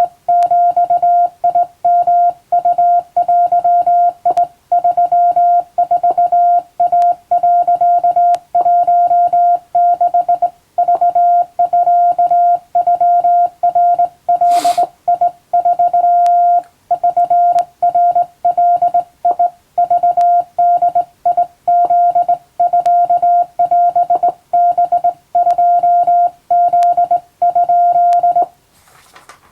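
Hand-keyed Japanese (wabun) Morse code: a single steady beep keyed on and off in dots and dashes at an even, practised pace. It stops about a second before the end. A brief rush of noise comes about halfway through.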